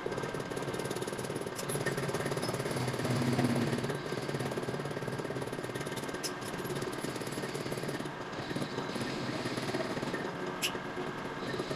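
Steady, rapid mechanical rattle of metalworking machinery, with a few sharp clicks.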